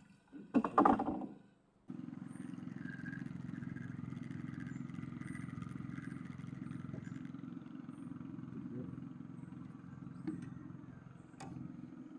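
A motor running steadily with a low, even hum. It cuts in abruptly about two seconds in and holds level, with no revving, after a brief voice sound at the start.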